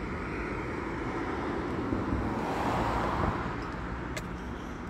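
A car driving past on the street, the rush of its tyres and engine swelling to a peak about three seconds in and then fading, over a steady low traffic hum.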